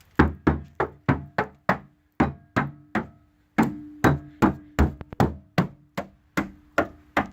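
Crusty metal of the Subaru P1's underbody or sill being knocked on repeatedly, about three sharp blows a second with a short pause partway through, the steel ringing faintly after each. The blows test the metal for rot, and it sounds solid despite the surface rust.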